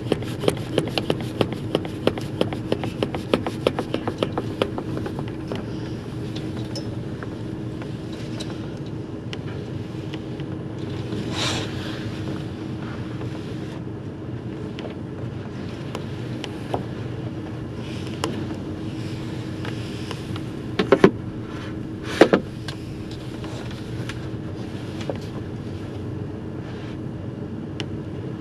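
Steady drone of a car ferry under way, with a constant hum and rushing wind and sea noise. A rapid run of small clicks fills the first few seconds, and two sharp knocks come a little over a second apart about three-quarters of the way through.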